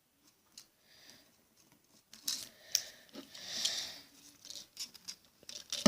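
Scissors cutting through the two overlapped ends of VHS magnetic tape: a few quiet clicks, then a short rasping snip about three and a half seconds in.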